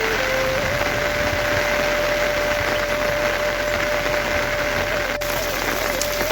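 Heavy rain falling steadily, a dense even hiss of rain on surfaces. A thin steady tone holds one pitch through most of it.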